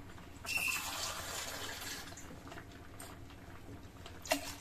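Water poured from a vessel into a pressure cooker pot holding a liquid dal-and-tomato mixture: a pouring splash that starts about half a second in and tapers off after about two seconds. A short knock near the end.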